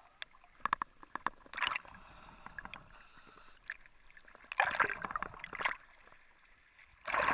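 Water splashing and sloshing in short bursts, with bubbling and small clicks, as a scuba diver at the surface reaches a dive boat's ladder and climbs out. It is picked up by a mask-mounted dive camera in its underwater housing.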